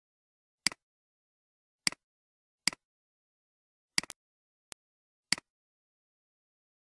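Computer mouse clicks, five of them spaced about a second apart, each a quick press-and-release double tick, with one fainter tick between the fourth and fifth.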